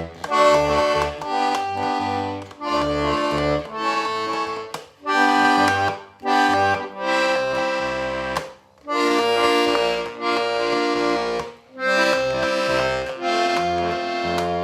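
Hohner Corona IIIR five-register diatonic button accordion being played: treble notes over bass notes, in short phrases about a second long with brief breaks between them.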